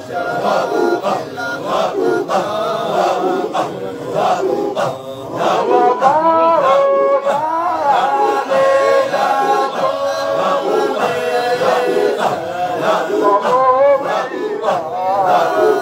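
Men chanting a Qadiriya Sufi dhikr together in a rhythmic group chant. About six seconds in, a sung melody line rises clearly over the chanting.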